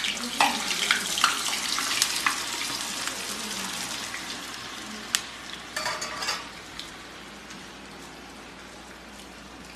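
Ready-made french fries dropped into hot oil in a kadai, sizzling and bubbling hard at first, the hiss dying down gradually as the frying settles. A sharp click and a brief clatter about halfway through.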